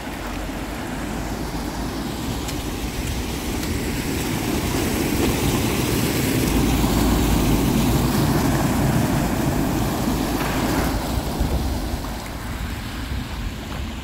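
A car driving through deep floodwater, its wheels churning up a wave, makes a rushing, splashing noise that swells to its loudest in the middle and then fades. Beneath it is the sound of floodwater flowing across the street.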